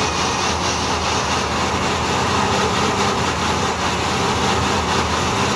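Stationary burnout in a Chevrolet Astro-type van: the V6 engine is held at steady revs while the rear tyre spins in place against the ground, making thick smoke. The engine drone and tyre noise run on unbroken.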